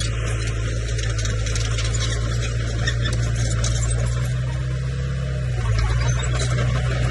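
Komatsu bulldozer's diesel engine running steadily under work, with fine rattling over a low engine drone; the engine note shifts and grows a little louder about six seconds in.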